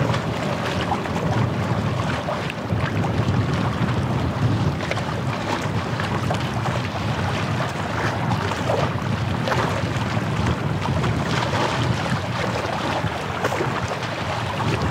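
Wind buffeting the microphone in a steady low rumble, with small waves lapping and splashing at the shore as many brief crackles.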